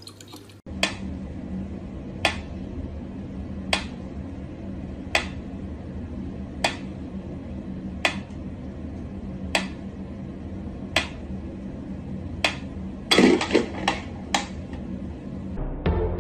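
Mechanical pendulum metronome ticking slowly, one sharp tick about every one and a half seconds, over a steady low hum. Near the end comes a quick flurry of louder clicks and knocks.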